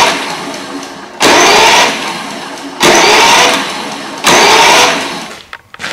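Electric starter on a Toro 21464's Briggs & Stratton engine cranking it with the spark plug out. It comes in short presses about a second and a half apart, each a rising whir lasting under a second that fades as the engine spins down. With no compression the starter turns the engine freely and does not lock up or cut out.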